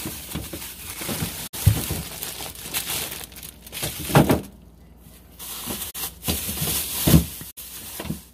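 Plastic packaging crinkling and food items knocking about as someone rummages through a refrigerator, with a few louder knocks and three brief instants where the sound cuts out.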